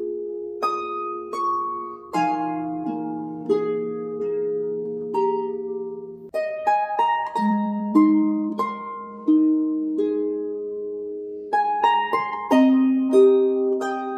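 Background music of plucked strings: a slow melody over chords, each note struck sharply and then fading.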